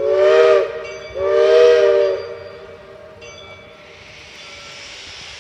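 Reading Blue Mountain & Northern 425, a 4-6-2 Pacific steam locomotive, sounding its chime whistle: a short blast, then a longer one, each a chord of several tones. A steady hiss follows.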